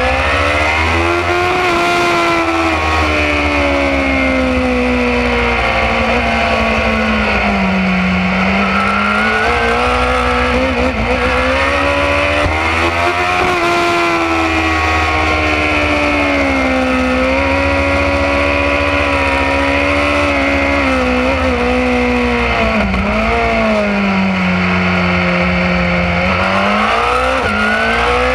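A BMW S1000RR's inline-four engine at speed, its pitch rising and falling as the revs climb and drop through the corners, with wind rushing over the microphone.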